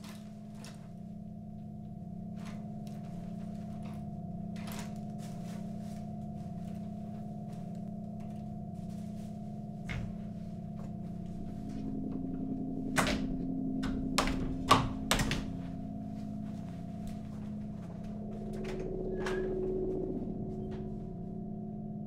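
Wooden door being handled and opened: scattered light clicks and knocks, then a cluster of several loud knocks and thumps about two-thirds of the way through, over a steady low hum.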